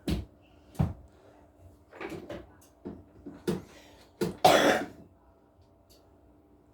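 Irregular clunks and rustles of frozen food being packed back into a freezer drawer, with a louder, longer rustling burst about four and a half seconds in, over a faint steady hum.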